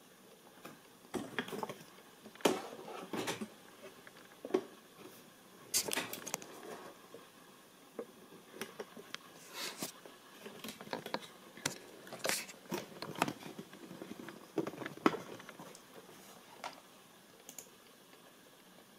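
Irregular clicks and soft knocks, a dozen or more short ones scattered through, with no steady sound beneath them.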